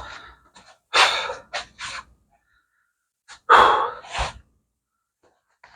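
A man sighing and exhaling heavily in exasperation, two long breaths with a few short breathy sounds between them, and a short low thump about four seconds in.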